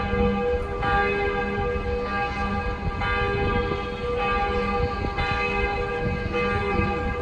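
Several of Notre-Dame de Paris's cathedral bells ringing together at different pitches. Fresh strokes land about every one to two seconds, each ringing on into the next, over a low rumble.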